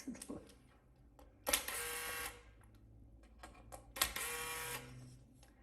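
Small electric screwdriver whirring in two short bursts as it drives laptop case screws, with light clicks of small parts being handled in between.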